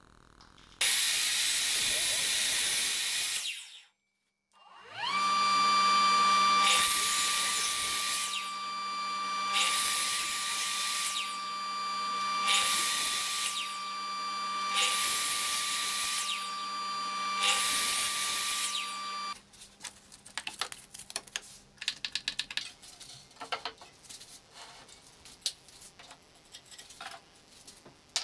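Sliding compound miter saw: the motor spins up with a rising whine and then runs steadily while the blade makes five cuts through thin wood pieces, about one every two and a half seconds, before it shuts off. A loud burst of cutting noise comes in the first few seconds, and after the saw stops there are scattered light clicks and taps from handling the wooden parts.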